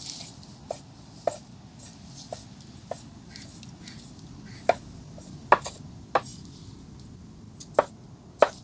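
Knife chopping on a wooden cutting board: scattered sharp knocks at an uneven pace, the loudest about five and a half seconds in, over a steady low background hum.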